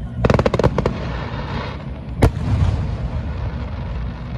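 Aerial fireworks bursting. A quick run of crackling pops comes about a quarter second in, then a fizzing crackle, then a single sharp bang a little after two seconds.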